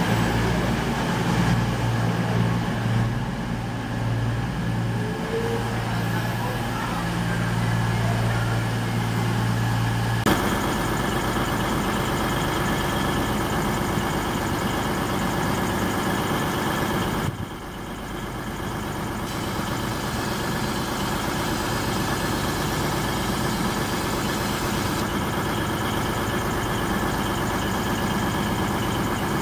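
CrossCountry diesel multiple unit standing at the platform with its underfloor diesel engines idling in a steady low hum. The tone changes abruptly about ten seconds in.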